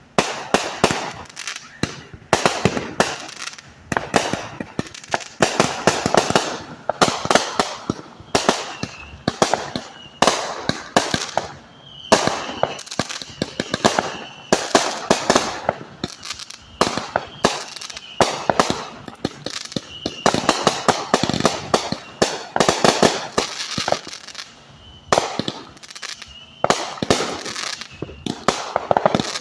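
Fireworks going off continuously: rapid clusters of sharp bangs and crackles that swell and fade every second or two.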